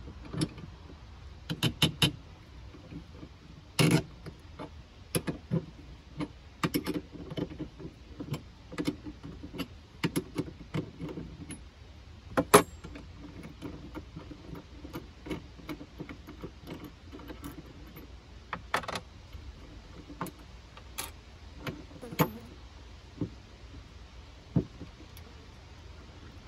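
Irregular metallic clicks and clinks from a wrench, a nut and cable lugs as battery cables are unbolted from a battery-monitor shunt. There is a quick run of clicks about two seconds in, and the sharpest clank comes about halfway through.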